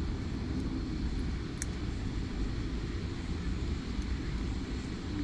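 Steady low rumble in the background, with a few faint light clicks.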